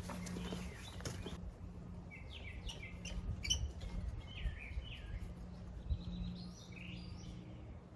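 Birds chirping and calling in short, varied phrases over a low steady hum.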